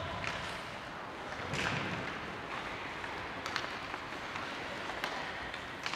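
Ice hockey game in an arena: a steady wash of rink noise broken by a handful of sharp knocks spread a second or two apart.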